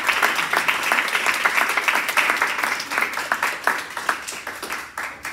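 Small audience applauding, the clapping thinning and dying away near the end.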